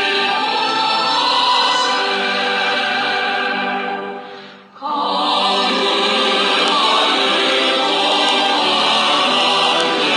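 Choral music, voices singing together in harmony. It fades down about four seconds in, then comes back suddenly at full level.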